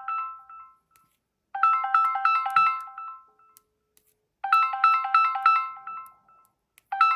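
Smartphone incoming-call ringtone: a quick run of short, bright electronic notes played as a phrase about two seconds long, repeating with short silent gaps between.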